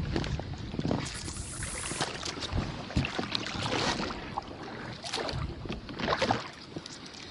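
Small inflatable boat on the water: water lapping and splashing around the hull, with scattered knocks and rustles as the boat and gear are handled.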